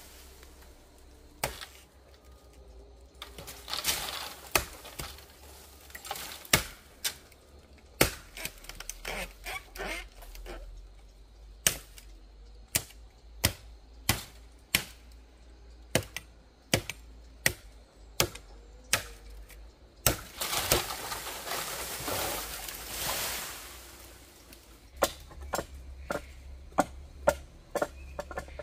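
A run of sharp knocks, about one to two a second, coming faster near the end. Two longer bursts of noise come between them.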